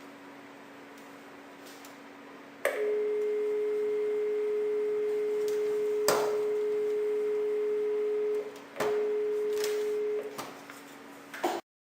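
A steady, pure electronic tone from the Systronics SVC-2010 voice alarm dialer. It starts with a click, holds for about five and a half seconds, breaks off briefly and returns for about another second and a half. Further clicks come in between, over a faint steady hum.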